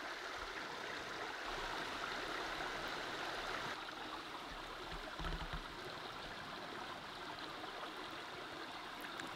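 Shallow mountain brook trout stream flowing and gurgling over rocks close to the microphone, a steady rush of water. A brief low bump comes about five seconds in.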